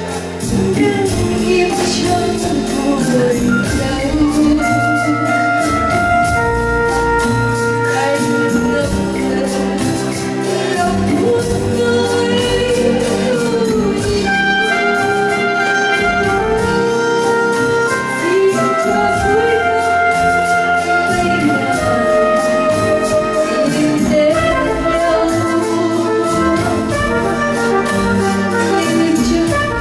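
Instrumental passage of live pop music led by an electronic keyboard: a melody of long held notes over a steady drum beat.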